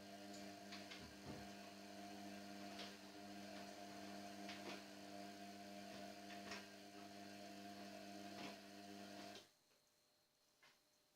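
Indesit washing machine running its slow wash phase while the water heats, giving a steady electric hum with a few faint ticks; the hum cuts off suddenly near the end.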